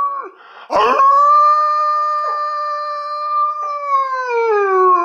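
German Shepherd puppy howling: one long howl that starts about a second in, holds a steady pitch for about three seconds, then slides down in pitch near the end.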